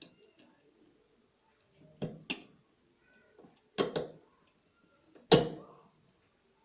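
Four sharp knocks and clanks of parts being struck or worked loose on a top-loading washing machine as it is taken apart: two quick ones, one more, then a louder one that rings briefly.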